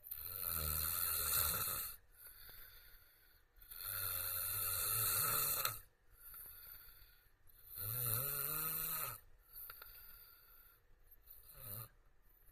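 A man snoring deeply: three long, loud snores about four seconds apart, each followed by a quieter breath, then a short, weaker snore near the end.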